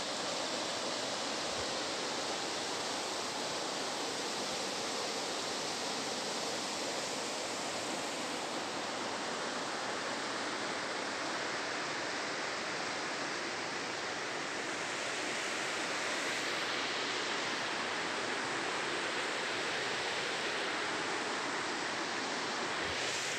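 Rapids of the Una river rushing steadily.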